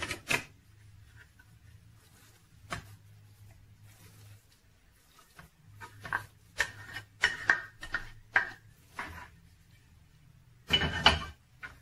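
A ladle scraping and knocking against plates as filling is scooped into a bowl of batter: scattered scrapes and taps, a quicker run of them in the middle and a louder clatter near the end, over a faint low steady hum.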